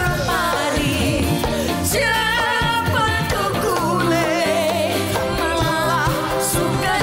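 Live music: male and female singers singing a Javanese-language song over a full band accompaniment, the voices wavering with vibrato.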